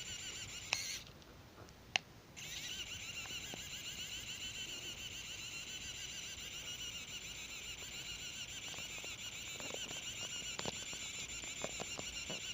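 A handheld 3D pen's extruder motor whirring steadily as it feeds filament. It stops for about a second shortly after the start and starts again, with a sharp click at each end of the gap. A few light ticks come near the end.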